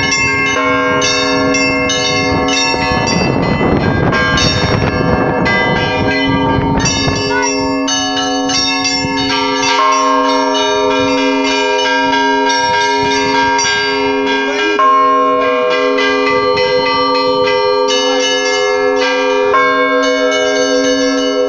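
Several church bells rung together by hand: small bells clanging quickly over a lower bell struck about once a second. A low rushing noise joins in for a few seconds near the start.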